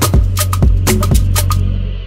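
Background music: a drum-and-percussion beat over a steady bass, thinning out and getting quieter near the end.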